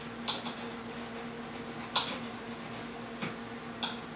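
Knife and fork clicking and scraping against a ceramic plate while cutting a baked pastry. There are about five short sharp clicks, the loudest about two seconds in, over a low steady hum.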